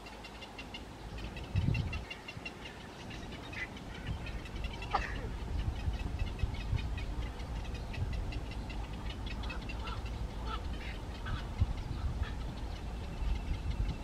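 Birds chirping in quick, high repeated notes, with one longer call that falls in pitch about five seconds in and a few short calls near the end, over a steady low rumble.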